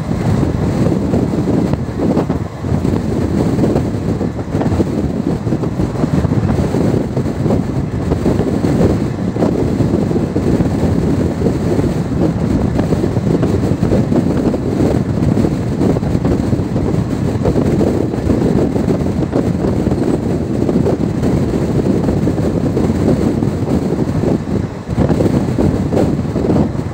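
Express train running along the track: a steady, loud rumble of wheels on the rails, with no breaks and no change in pace.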